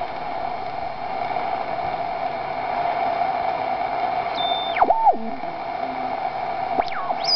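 Shortwave band noise from a WBR regenerative receiver, set slightly oscillating, being tuned across the 31-metre band: a steady hiss with a hump in the mid-range. About four and a half seconds in, a heterodyne whistle falls in pitch in steps as the set is tuned through a carrier, and near the end another whistle drops from high pitch.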